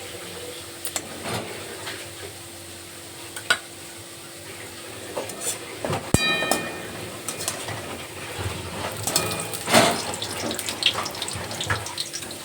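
Sliced onions frying in oil in a kadai with a steady sizzle. A metal spoon scrapes and clinks against the pan as the fried onions are lifted out, with one sharp, ringing metal clink about six seconds in.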